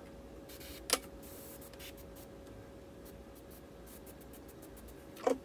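Airbrush spraying acrylic paint in faint, brief passes, under a faint steady hum. A short knock comes about a second in and another near the end.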